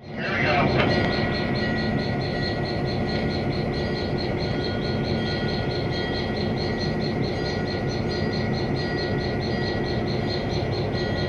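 Ex-Army EMD GP7L diesel-electric locomotive's two-stroke V16 engine running steadily, heard up close from the walkway beside its long hood, with a steady high whine over the engine noise.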